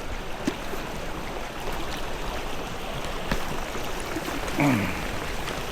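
River water flowing steadily, with a brief low falling pitched sound about four and a half seconds in.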